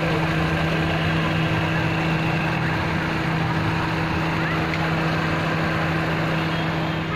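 Car engine idling with the AC compressor running, heard close up in the open engine bay: a steady drone with a constant hum that stops near the end.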